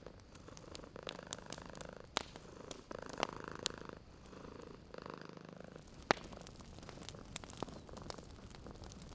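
Cat purring close up in a slow rhythm of swells and fades. Scattered sharp pops and crackles of a wood fire run over it, with one louder pop about six seconds in.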